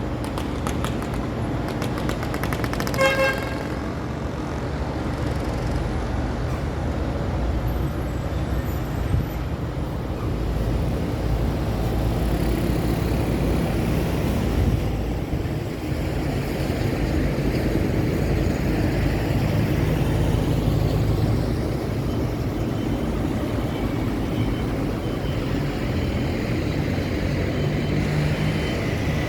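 Steady city road traffic, with the engines of passing cars, trucks and motorcycles rumbling. A short horn toot sounds about three seconds in.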